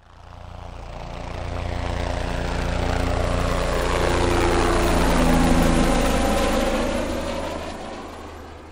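An aircraft flying past: a low engine drone that swells up from silence, peaks about five seconds in, then fades away.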